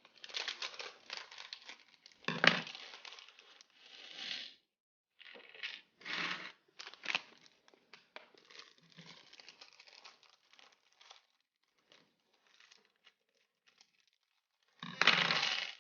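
Plastic Lego parts bags crinkling and being torn open, with scattered light clicks. It comes in irregular rustles, loudest about two and a half seconds in and in a dense burst of crinkling near the end.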